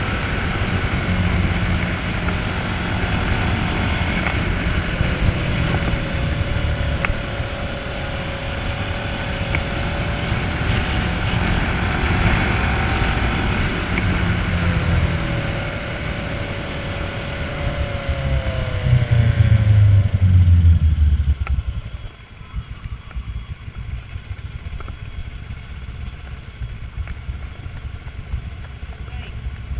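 Motorcycle on the move: the engine runs under a steady rush of wind noise, its pitch rising and falling with the revs. The sound is loudest around twenty seconds in, then drops suddenly as the wind noise falls away, leaving a quieter, low-revving engine as the bike slows.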